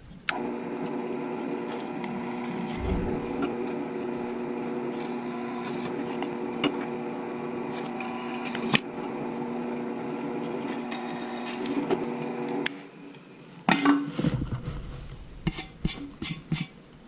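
Benchtop drill press running steadily while a number 40 bit pilot-drills holes through a hydrofoil plate. The motor cuts off about 13 seconds in, and a few knocks and clicks follow.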